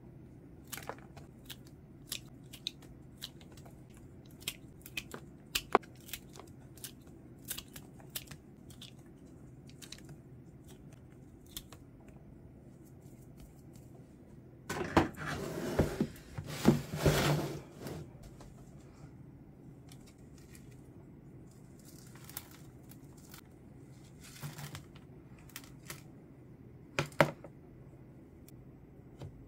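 Hands handling houseplants and pots during repotting: scattered small clicks and taps, and about three seconds of rustling and tearing about halfway through, which is the loudest part. A single sharper click comes near the end.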